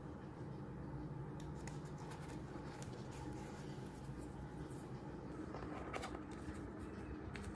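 Light rustling and small clicks of paper and tape being pressed and smoothed onto a notebook page by hand, with a denser patch of paper handling about six seconds in, over a steady low hum.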